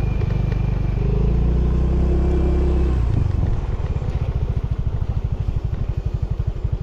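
A small engine running steadily, then easing off about three seconds in to an even, rapid putter like an idle.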